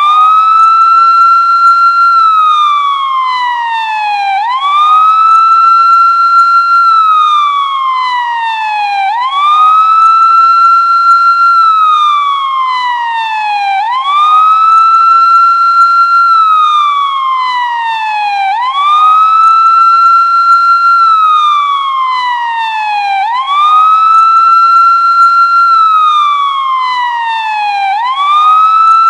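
Police siren sounding a slow wail: the tone rises quickly, holds at its top note for a moment, then slides slowly back down, the cycle repeating about every four and a half seconds, six times over.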